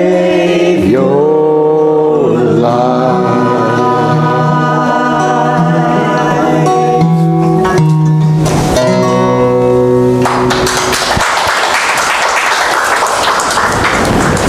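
Choir singing with instrumental accompaniment through the last phrases of a song, ending on held notes about ten seconds in. The congregation then breaks into applause.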